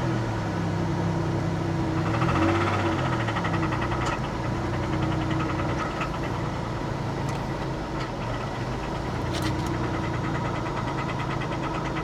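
2002 Pontiac Grand Prix GTP's supercharged 3.8-litre V6 running and given light taps of the throttle, its pitch rising and falling in the first few seconds, with a rapid ticking knock from the engine: the owner takes it for an engine knock.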